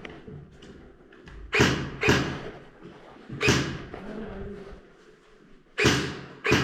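Airsoft gun firing five single shots, each a sharp crack with a short echo: two about half a second apart, one more a second and a half later, and two more near the end.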